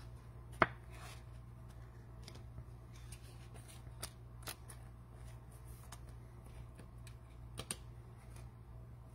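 A few short, sharp clicks and light taps, the loudest about half a second in and a pair near the end, over a steady low hum.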